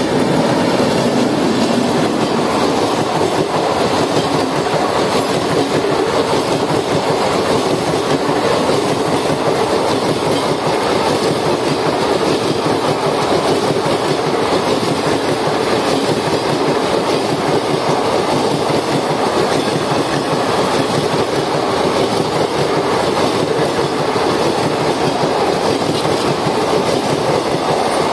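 A WAP7 electric locomotive and its long train of ICF passenger coaches passing close by at speed: a loud, steady rush of steel wheels running on the rails.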